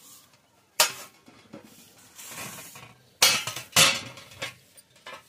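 A kitchen knife and cut guava clinking and knocking on a stainless steel tray while a guava is sliced. There is one sharp clink about a second in and a softer scraping stretch, then two loud clinks close together near the end.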